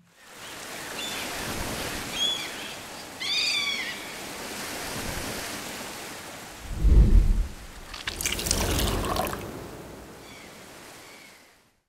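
Ocean surf washing, with a few short seagull cries in the first few seconds. A low thump about seven seconds in is the loudest sound, followed by a louder rush of surf that fades away.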